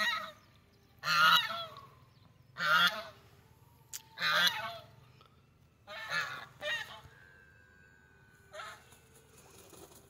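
Domestic geese honking: about seven loud honks spaced a second or two apart, the later ones fainter.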